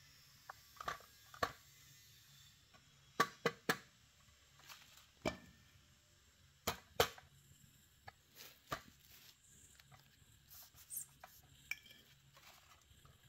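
Faint scattered clicks and knocks of objects handled on a glass bathroom scale, a few sharper taps bunched about three seconds in and again about seven seconds in, over a low steady hum.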